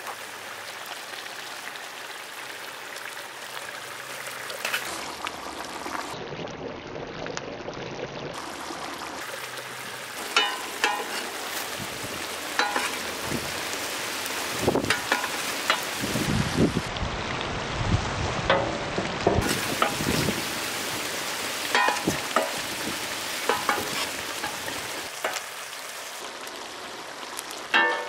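Masala gravy bubbling and sizzling in a large kadai, with whole fish cooking in it. From about a third of the way in, a steel ladle repeatedly clinks against the pan as gravy is spooned over the fish.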